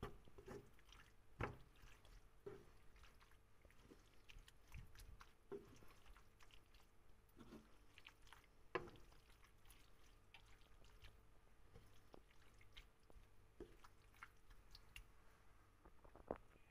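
Faint wet squelching and scraping of a wooden spoon stirring a moist shrimp and vegetable filling in a frying pan, with scattered soft knocks of the spoon on the pan, the loudest about a second and a half in and again near nine seconds.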